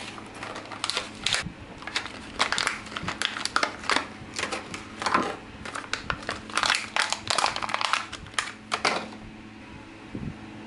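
Plastic and card screwdriver packaging being slit with a knife and crinkled as the tool is pulled out: irregular crackles and snaps that stop about nine seconds in.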